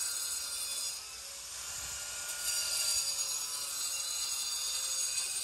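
Corded angle grinder cutting and grinding into a concrete sidewalk: a high whine over a gritty hiss. It eases off about a second in, bites back in, and stops abruptly at the end.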